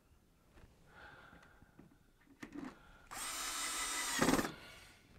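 Cordless drill-driver driving a screw: a faint brief whir about a second in, then a loud steady run of about a second and a half near the end that stops abruptly.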